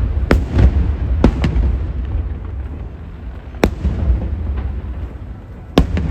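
Aerial fireworks shells bursting: five sharp bangs, irregularly spaced a fraction of a second to two seconds apart, over a steady low rumble.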